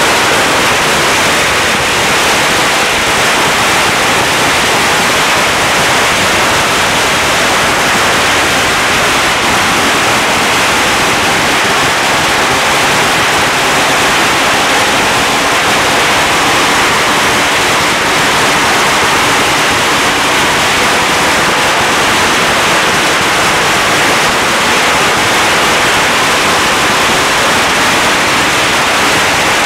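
A 100,000-shot string of Chinese firecrackers going off without a break, the bangs so rapid and close together that they run into one loud, steady crackle.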